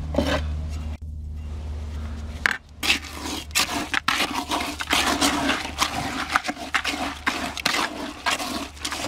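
Wet high-strength concrete mix being stirred in a plastic bucket with a hand tool: rapid, irregular scraping and slopping strokes that start about three seconds in. Before the stirring there is a steady low hum.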